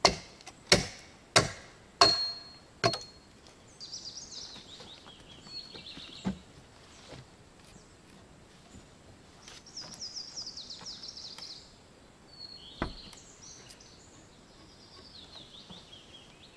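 Five sharp chopping blows on wood, about one every 0.7 seconds, then single blows about six and thirteen seconds in. Between them a small songbird sings short trilled phrases that fall in pitch.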